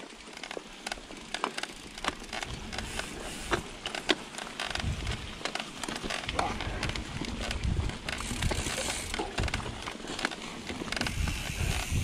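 Mountain bike rolling over a rough dirt and rock trail: tyres crunching with frequent sharp clicks and rattles from the bike. From about five seconds in, low gusty rumble of wind on the microphone joins it.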